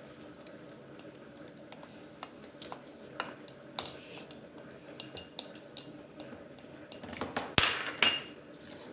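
A metal spoon clicking and scraping against a dish as chopped onion is spooned onto honey, with light scattered clicks. Near the end come two louder, ringing clinks of the spoon on the dish.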